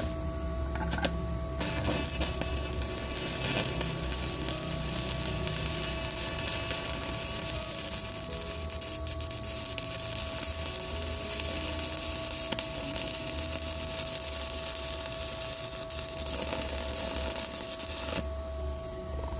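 Stick-welding arc from a WeWeld ARC 220 inverter welder burning a 3.2 mm E6013 electrode at 120 amps: a few sharp clicks as the arc is struck, then a steady crackling sizzle from about a second and a half in until shortly before the end. It welds normally, though it sounds a little weak at this setting.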